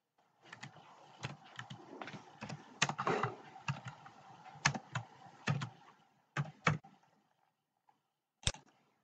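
Computer keyboard typing: irregular keystroke clicks for about six seconds, then a pause and one more click near the end.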